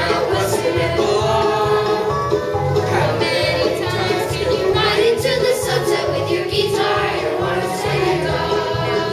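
Children's stage cast singing together over country-style musical accompaniment with a steady beat.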